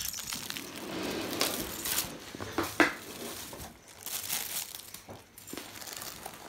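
Fabric of a pop-up play tunnel crinkling and rustling as a baby crawls through it, with a few brief knocks.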